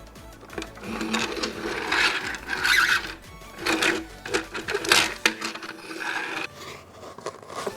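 Toy packaging being handled and opened: irregular rubbing and scraping with a few sharp clicks.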